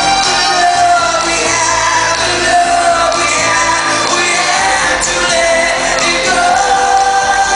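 Live rock band playing loudly, with long sung notes held over the band and a hall echo.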